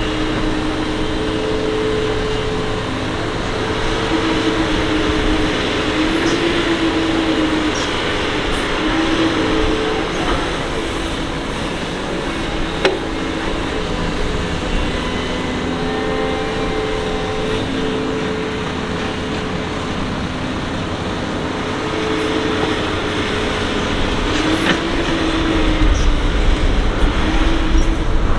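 Doosan DX225LC excavator's diesel engine and hydraulics working, the engine note rising and falling every few seconds as it digs and swings under load, with a single sharp clank about halfway through. The low rumble grows heavier near the end.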